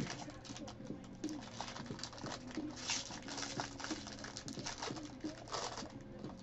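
Foil trading-card pack wrapper crinkling and cards rustling as they are handled by hand, in irregular crackles that are loudest about three seconds in.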